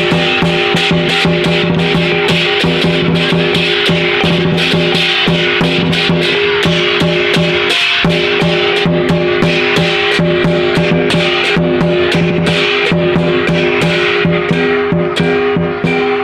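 Lion dance music: rapid, continuous drum and cymbal strikes over steady sustained pitched tones.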